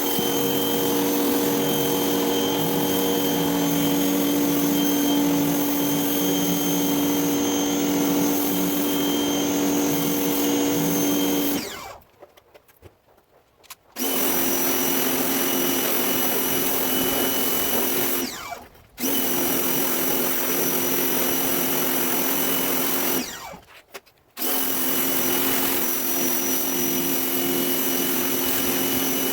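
Greenworks 2000 psi electric pressure washer running with a steady motor hum under the hiss of the water spray through a surface cleaner. It cuts out and restarts three times: about twelve seconds in for about two seconds, briefly around eighteen seconds, and for about a second around twenty-three seconds, as the spray trigger is released and squeezed again.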